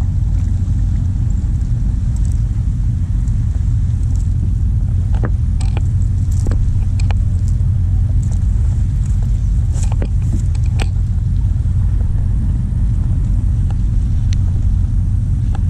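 Steady low rumble from a fishing kayak under way, with scattered clicks and creaks from the hull and gear.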